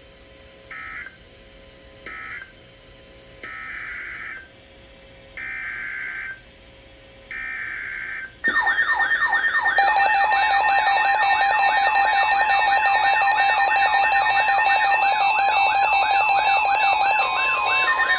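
Emergency Alert System data bursts and attention signal. First come two short screeching data bursts, the end of the previous message, and then three longer bursts about a second apart, the coded header of the next severe thunderstorm warning. About eight seconds in, a loud electronic alert tone starts: steady tones with a rapid warbling sweep over them, running on without a break.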